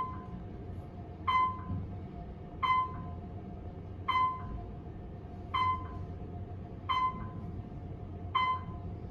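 Otis elevator car descending, a short electronic beep sounding about every second and a half as each floor is passed, over a steady hum and low ride rumble.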